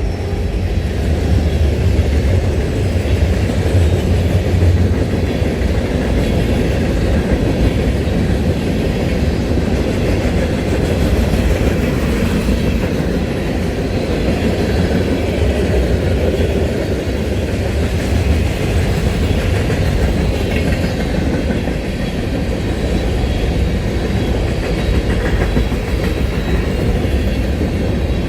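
A train rolling past at close range: a steady heavy rumble with the clickety-clack of wheels over the rail joints.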